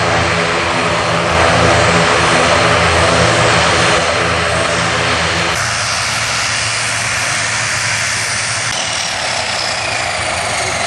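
Twin turboprop engines of an NC-295 (CN-295) transport aircraft running on the ground, a loud, steady propeller drone with a buzzing hum. About halfway through the hum drops away suddenly, leaving a rushing engine noise with a faint falling whine.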